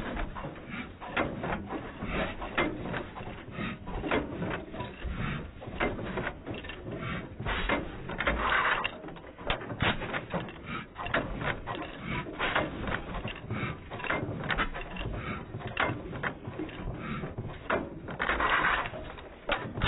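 Galloway 2 1/4 hp stationary gasoline engine running, its gears, valve gear and igniter linkage clattering in a steady run of irregular clicks. Louder rushing bursts come about halfway through and again near the end.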